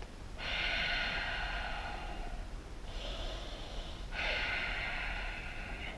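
A man's slow, deep breathing, each breath audible and about two seconds long: a loud breath starting about half a second in, a softer one near three seconds, and another loud one at about four seconds, paced with the dips of a lunge stretch.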